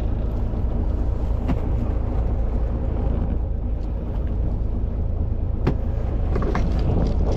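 Fishing boat's engine running underway: a steady low rumble with the rush of wind and water, and a couple of sharp knocks, the first about a second and a half in.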